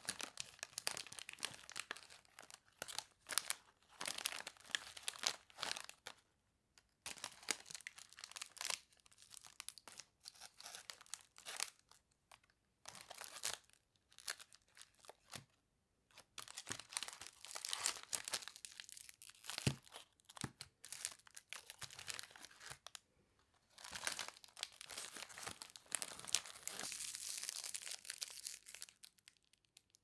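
Cellophane candy bags crinkling as they are handled, in irregular bursts with a few short pauses and a longer, denser stretch of crinkling near the end.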